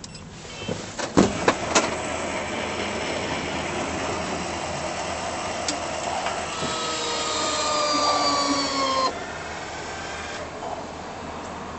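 A 2010 Honda Odyssey wheelchair van's powered side door and fold-out ramp working: a few sharp clicks as the door releases, then the ramp's electric motor running. Its whine falls slowly in pitch as the ramp lowers and cuts off suddenly about nine seconds in.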